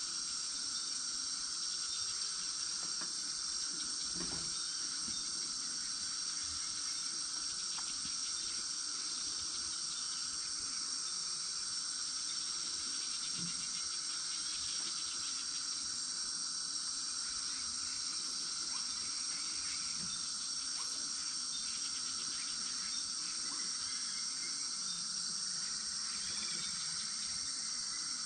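Rainforest insects singing in a steady, high-pitched chorus, with a second, lower band of song beneath it.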